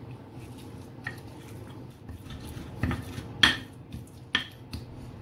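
Stone pestle grinding and crushing chilies, shallots, garlic and shrimp paste in a stone mortar (Indonesian cobek and ulekan), with a low grinding rub and irregular sharp knocks of stone on stone, the loudest about three and a half seconds in.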